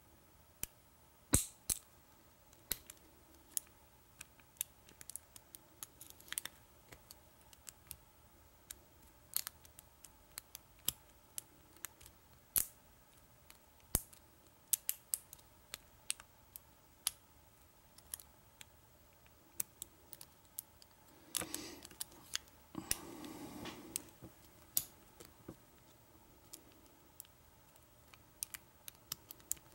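Lock pick and tension wrench clicking irregularly against the sliders in the keyway of a Kwikset SmartKey padlock as it is single pin picked. About two thirds of the way through there is a longer scraping rustle.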